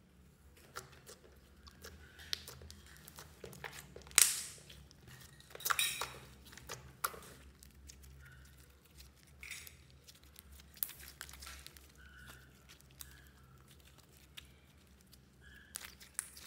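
Hands kneading and squeezing a lump of slime, with irregular sticky clicks, pops and squelches as it is folded and pressed. The loudest bursts come a little past four seconds and again around six seconds.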